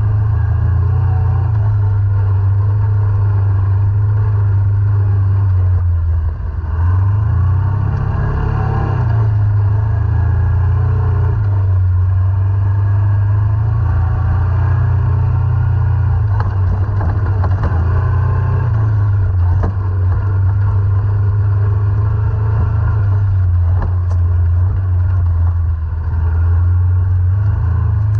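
ATV engine running under changing throttle, its low note dipping briefly about six seconds in and climbing again. Scattered knocks and rattles ride over the engine.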